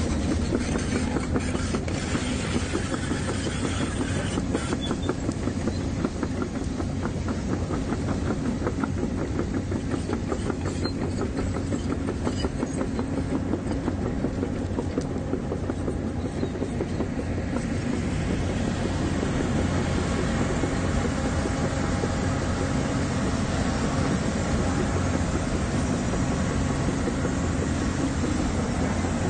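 Hyundai crawler excavator running, its diesel engine humming steadily under a fast, even clanking of the steel tracks as it travels. The engine note grows fuller about two-thirds of the way through.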